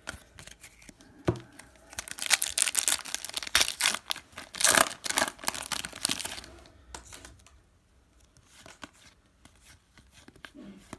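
A hockey card pack's wrapper being torn open and crinkled, a dense crackling rip for about four seconds, followed by faint clicks of cards being handled.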